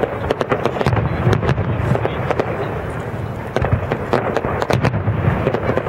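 Fireworks display: aerial shells bursting in quick succession, many sharp bangs and crackles a second over a continuous low rumble.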